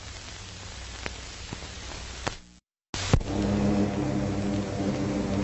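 Old film soundtrack hiss with a few crackles, then a brief dead gap and a click about two and a half seconds in, as at a splice. After it a steady propeller aircraft engine drone starts with a low hum, louder than the hiss.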